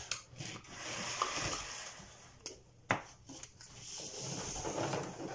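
Felt-tip marker scribbling on paper while colouring in, heard as two stretches of scratchy hiss with a few sharp taps between them.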